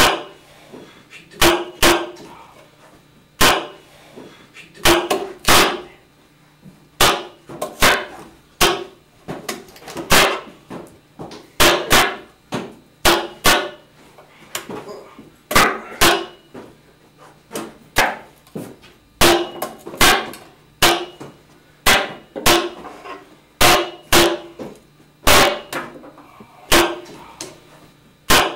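A kitchen knife chopping through vegetables onto a wooden cutting board: repeated sharp chops, irregularly spaced at a little more than one a second, each with a short knock from the board.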